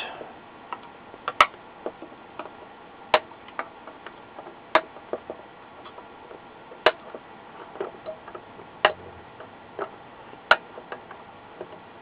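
Wire snips cutting off excess capacitor leads on the solder side of a monitor power supply board after soldering. There are about a dozen sharp snips at irregular gaps of roughly a second.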